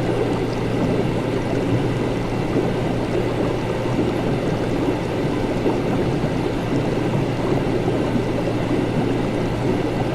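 Laboratory ambience of continuous bubbling, gurgling liquid over a steady low hum.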